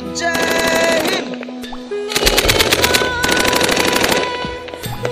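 Rapid machine-gun fire in bursts: one of about a second, then, after a short pause, a longer one of about two seconds. Background music with held and sliding tones plays under it.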